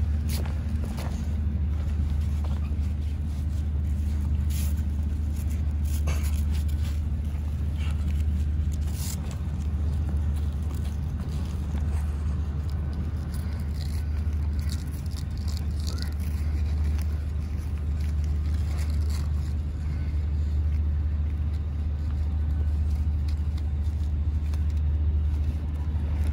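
Steady low machinery drone that holds level throughout, with scattered brief clicks and scrapes of gear being handled.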